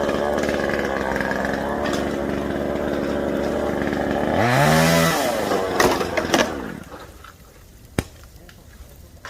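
A small engine running steadily, then rising in pitch about four and a half seconds in before stopping, with a couple of knocks as it dies away. Afterwards it is much quieter, with one sharp crack near the end.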